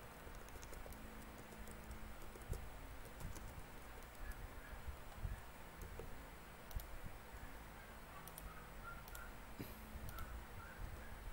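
Computer keyboard typing: scattered keystroke clicks in short spells over a low room hum.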